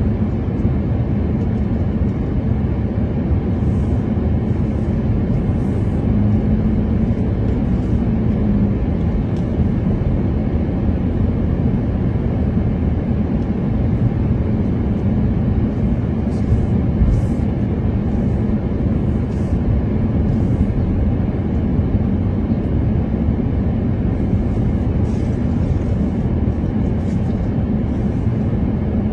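Steady low rumble of a moving vehicle, running evenly without letting up.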